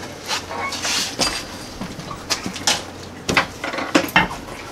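Scattered metal clinks and knocks as a person climbs onto a mini bike and settles on it, with a few louder knocks near the end.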